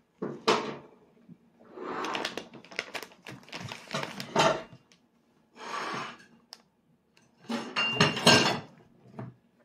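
A child's spoon clinking and scraping against a plastic divided plate in several irregular bursts of sharp clicks.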